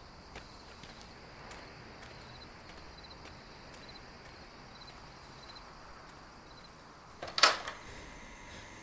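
Crickets chirping at night in short, evenly spaced trills over a faint steady background. A sudden loud clatter comes about seven and a half seconds in, and a steady hum follows near the end.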